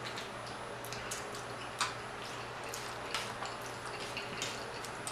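Close-up eating sounds: soft, irregular wet clicks of chewing and lip smacking, one a little louder about two seconds in, over a low steady hum.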